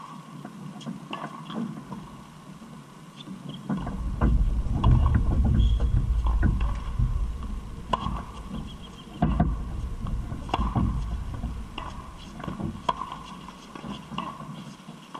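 Tennis balls struck by rackets and bouncing on a hard court during a rally, sharp separate pops every one to two seconds. A low rumble comes in suddenly about four seconds in and is the loudest sound until it fades near eleven seconds.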